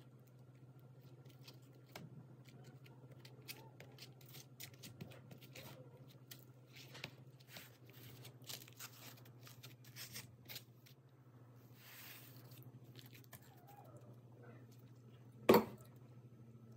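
Faint scraping and small clicks as buttercream and lemon filling are spread over thin baked cake layers with a silicone spatula and a spoon, over a low steady hum. A single sharp knock comes about a second before the end.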